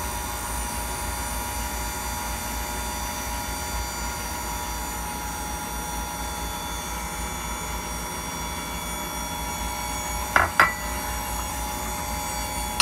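KitchenAid stand mixer running at low speed, its wire whisk beating cake batter in a glass bowl: a steady motor hum. A couple of sharp knocks come near the end.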